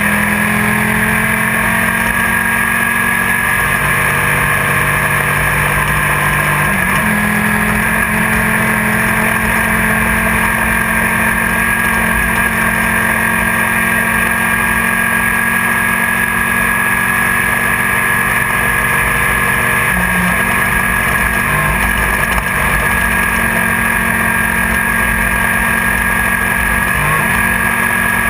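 Class 1600 off-road race car's engine running hard at steady high revs, heard from inside the car, with a constant rush of wind and terrain noise and a steady high whine over it. The engine note shifts briefly a few times along the way.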